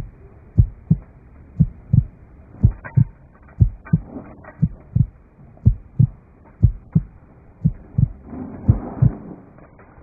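Heartbeat sound effect: pairs of low, short thumps, lub-dub, repeating steadily about once a second.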